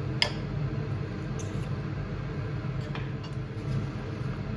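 A sharp click about a quarter second in, then a few faint clicks of cutlery against a plate, over a steady low hum.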